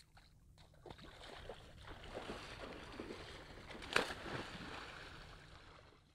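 Water sloshing and gurgling around a canoe, swelling for a few seconds and fading near the end, with one sharp knock about four seconds in.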